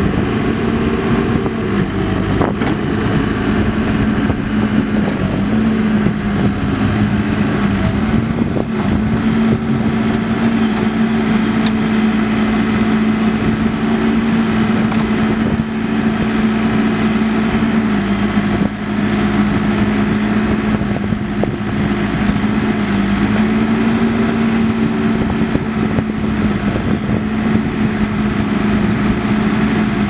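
Case 580 Super M Series II backhoe's four-cylinder turbo diesel engine running steadily while the backhoe boom and bucket are worked. Its pitch dips slightly a few times.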